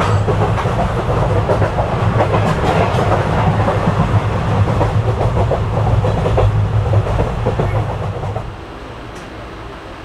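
Passenger train running at speed, heard through an open window: a loud rumble with steady clickety-clack of the wheels over the rails. The sound drops sharply to a quieter, steady rumble about eight and a half seconds in.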